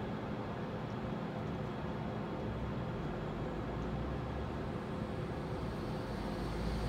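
Steady low mechanical hum and rumble of outdoor background noise, growing slightly louder near the end.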